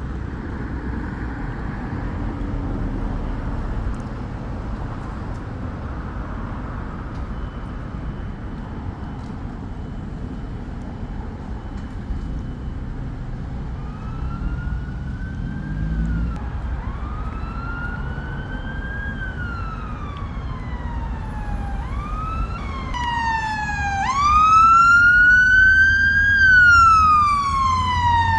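Low rumble of road traffic, then about halfway in a fire engine's wailing siren comes in faintly. Its slow rising-and-falling sweeps grow steadily louder as it approaches and are loudest near the end.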